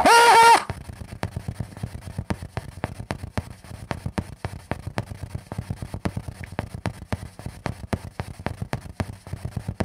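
A loud, repeating pitched sound that cuts off about half a second in, followed by faint, irregular clicks and crackles, several a second, over a low hum.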